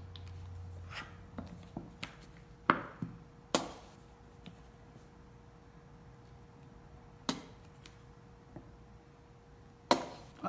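Plastic squeeze bottle of Parkay margarine being squeezed over a cake, giving scattered sharp clicks and pops, the loudest a little under three seconds in and just before the end.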